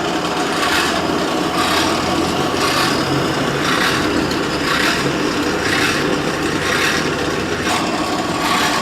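Hand-worked forge blower pumping air through a pipe into the charcoal fire: a steady rushing hiss over a low hum, swelling about once a second with each stroke.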